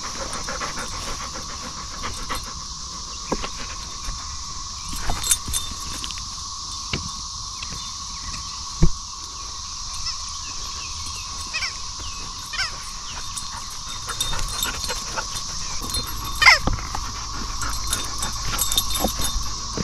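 A shepherd-mix dog panting as it tugs on a rubber bone toy, with scattered clicks and knocks. A steady high-pitched hum runs underneath.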